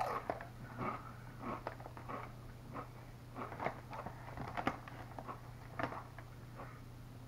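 Close-up crunching and chewing of Doritos tortilla chips: a sharp bite right at the start, then irregular crunches through the mouthful.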